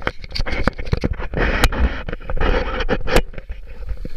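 Handling noise from the camera being gripped and positioned: irregular scrapes, rubbing and sharp knocks right against the microphone.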